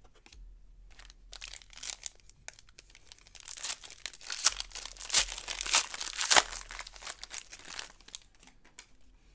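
Foil trading-card pack wrapper crinkling as it is torn open and the cards are slid out, a dense run of rapid crinkles that is loudest in the middle and fades out near the end.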